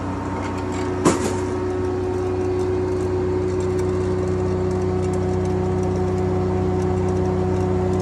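Antique sawmill's machinery running with a steady engine drone and hum. A single sharp clank sounds about a second in.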